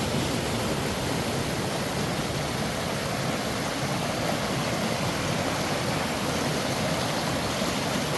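Floodwater rushing steadily down a small creek swollen by heavy rain, a constant even roar of fast-flowing water over rocks.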